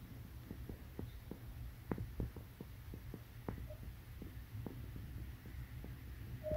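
A British Shorthair cat in heat purring: a low, throbbing hum, with faint scattered clicks over it.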